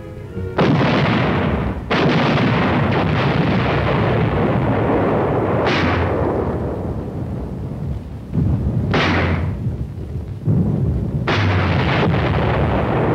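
Artillery and mortar fire: about half a dozen heavy blasts at irregular intervals, each followed by a long rolling rumble that dies away slowly.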